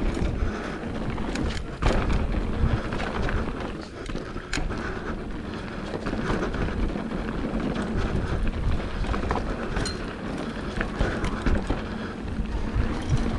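Mountain bike riding down a dirt trail: tyres rolling over the ground with frequent rattles and knocks from the bike over bumps, and wind on the microphone.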